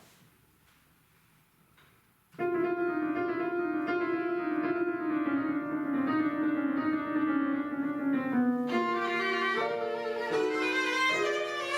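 Quiet room tone for about two seconds, then violin and piano start playing. The violin opens on a long note that slowly sinks in pitch, and a few seconds later moves into quicker changing notes over piano chords.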